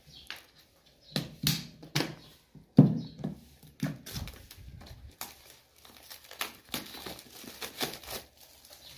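An orange snap-off utility knife slitting the seal of a small cardboard earbud box, then clear plastic wrapping crinkling and tearing as it is pulled off by hand, with scattered sharp clicks and knocks from handling the box.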